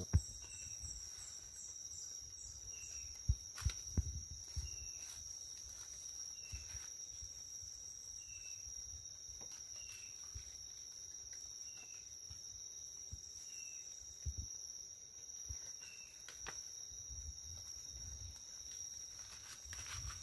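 Steady, high-pitched drone of forest insects, with short chirps every second or two. Over it come scattered rustles of dry leaves and a few sharp snaps and knocks of twigs, the loudest a few seconds in, as a man works on the forest floor by hand to set a snare.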